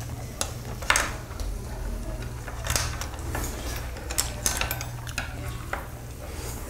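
Chopsticks and spoons tapping and clinking against a wire grill and tableware, with scattered sharp clicks, the loudest about a second in, over a steady low hum.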